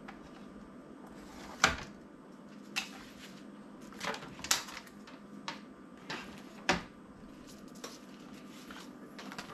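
Sheets of vinyl and paper being handled, slid and laid down on a wooden table: a run of short, sharp slaps and rustles, the loudest about one and a half seconds in.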